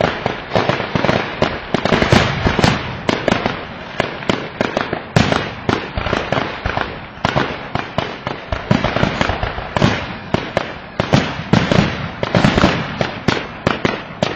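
Fireworks going off in rapid succession: many sharp bangs a second, overlapping with no pause.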